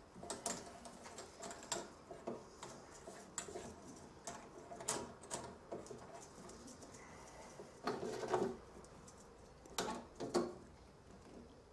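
Scattered clicks and metal knocks of a benchtop drill press being adjusted by hand, its motor switched off. Louder clanks come about eight and ten seconds in.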